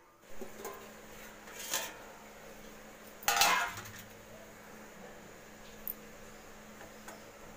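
Stainless-steel lid and steamer pot clanking and clattering as the steamer is covered and then uncovered, with the loudest clatter about three seconds in. A faint, steady low hum runs underneath.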